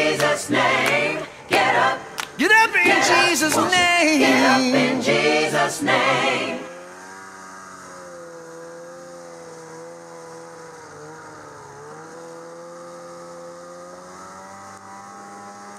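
Background gospel music: voices singing in harmony, then from about six seconds in a long, quieter held chord.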